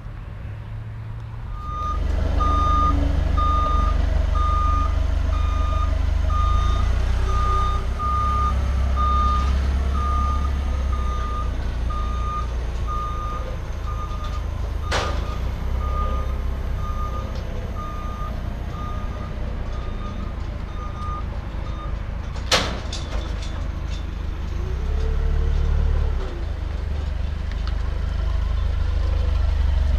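Forklift engine running with its reversing alarm beeping in a steady repeating rhythm, the beeping stopping about two-thirds of the way through. Two sharp metal clanks, the second the loudest, and the engine revs briefly near the end.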